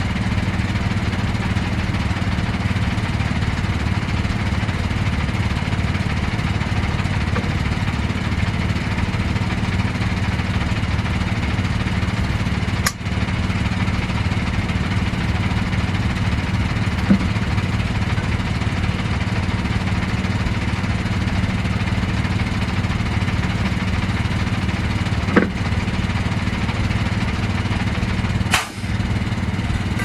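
An engine running steadily at idle, with four brief sharp knocks spread through it, the last near the end.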